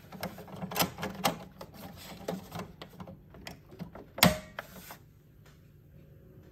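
Plastic ink cartridge being pushed into the carriage of an HP DeskJet 2700e printer: small clicks and scrapes of plastic on plastic, then one loud snap about four seconds in as the cartridge locks into its slot.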